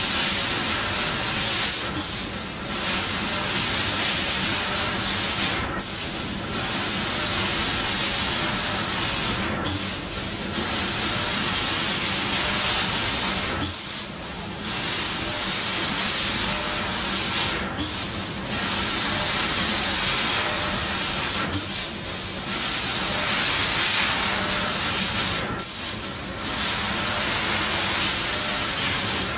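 MSF fiber laser cutter cutting sheet metal with two heads: a steady loud hiss of the cutting gas jet over a low machine hum, broken by short gaps about every four seconds.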